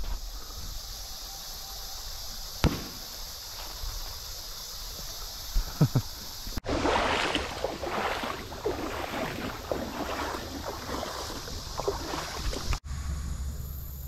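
A steady high hiss with a few sharp clicks, then, after an abrupt change about six and a half seconds in, water splashing and sloshing in irregular bursts for about six seconds.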